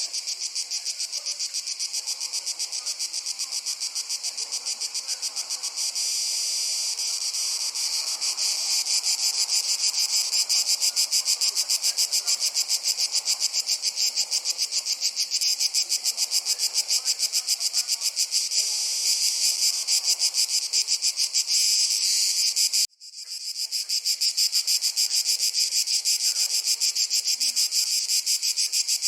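Dense summer chorus of insects, crickets by the uploader's tags, chirping continuously in a fast, even pulse, high-pitched, growing louder about eight seconds in. The chorus cuts out abruptly about 23 seconds in and fades back up within a second.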